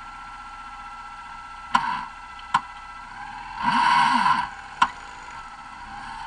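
Cross buggy engines running steadily, with a louder stretch of engine noise with wavering pitch about halfway through. Three sharp knocks stand out, the loudest sounds here.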